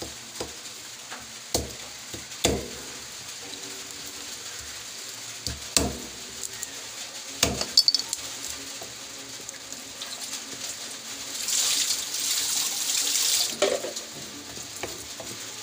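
A kitchen knife and a whole fish knocking on a wet wooden cutting board as the fish is cut and turned over, several sharp knocks in the first half, the loudest a quick cluster about halfway through. Near the end comes a rush of running water for about two seconds.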